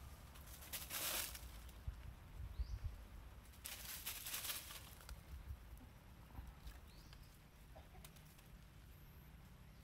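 Rustling and brushing among dry leaves and branches, in two bursts about a second in and near the middle, with soft low knocks between, as monkeys climb and grapple on a branch. A couple of faint, short, high rising chirps.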